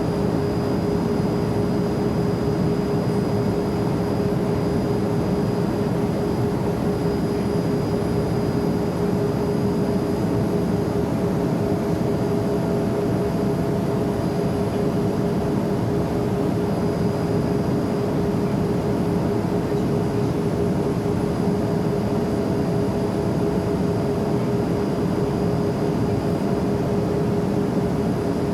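Jet airplane noise: an even, unchanging rushing drone with a steady hum running through it.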